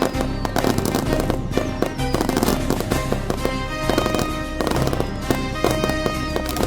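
Fireworks going off in a rapid string of bangs and crackles, mixed under loud instrumental music.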